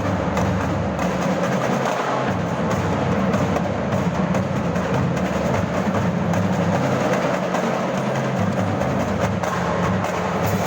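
Marching drumband playing: drums keep up a dense, unbroken percussion rhythm.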